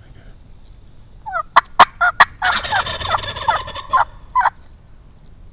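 Wild turkey gobbler gobbling loudly: a few sharp notes, then a rattling gobble lasting about a second and a half, and one more note near the end.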